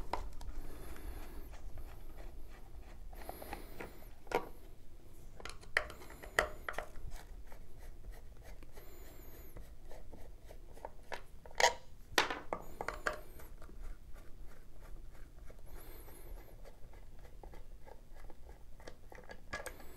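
Screwdriver backing out the four small screws of a Sensus R275 gas meter's index cover: faint scraping and scattered small clicks, with a few sharper clicks about halfway through.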